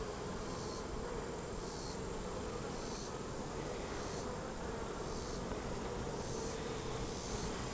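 Honey bees buzzing around an opened hive: a steady, even hum from the colony as its frames are lifted out.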